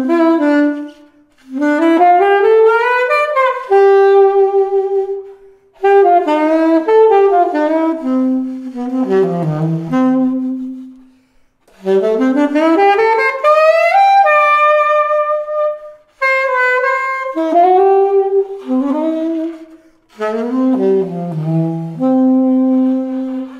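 Coleman CLC-551 E-flat alto saxophone played unaccompanied: a melodic line in several short phrases, with quick rising and falling runs and held notes, and brief pauses for breath between phrases.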